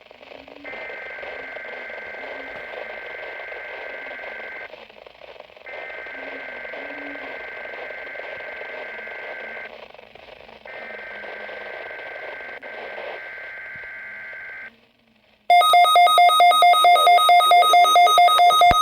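Weather radio SAME alert header: three bursts of two-tone digital data warble, each about four seconds long with about a second's gap between them, over radio hiss. They mark the start of a test alert. About fifteen seconds in, a loud, rapidly pulsing electronic alarm beep starts.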